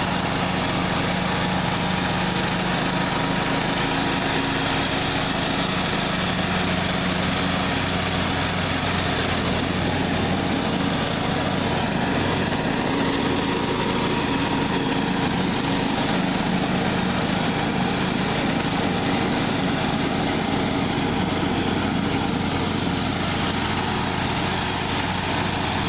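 John Deere LA115 riding mower's 19.5 hp Briggs & Stratton engine running steadily at an even speed.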